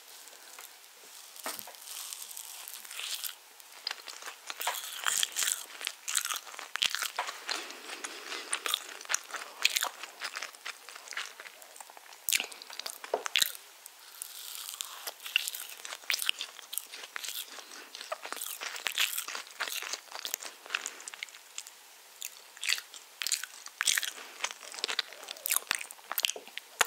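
Close-miked biting and chewing of spiced orange cake: a steady run of short, sticky mouth clicks and smacks.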